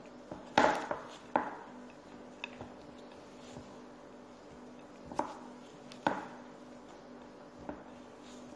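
Silicone spatula stirring thick chocolate cookie dough in a ceramic bowl, with irregular knocks as it strikes the bowl, the loudest in the first second and a half and fainter ones later.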